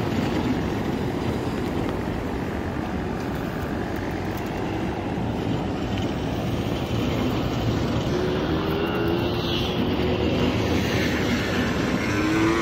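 Steady rushing wind on the microphone with surf breaking behind it. A faint, slowly rising whine comes in about eight seconds in.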